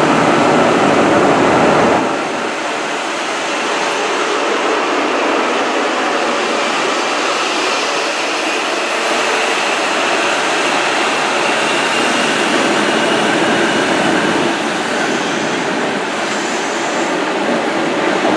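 Class 43 HST diesel power car pulling out under power, its engine running hard as it draws past, loudest in the first couple of seconds. Then the train's coaches roll steadily by.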